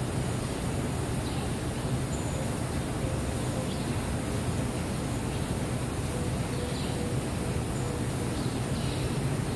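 Steady indoor room noise: a continuous low hum and hiss with no distinct events.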